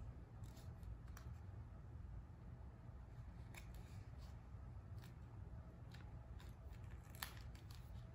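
Faint rustling and small ticks of paper being folded and pressed down onto tape, over a steady low hum. The sharpest tick comes about seven seconds in.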